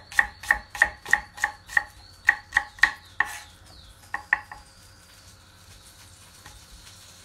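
Knife slicing an onion on a chopping board: a steady run of about ten cuts, roughly three a second, stopping about three seconds in, with two more quick cuts about a second later.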